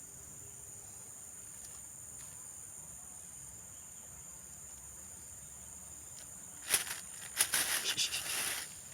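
Insects shrilling in a steady, high, even drone. About seven seconds in, a couple of seconds of loud, close rustling and clicking.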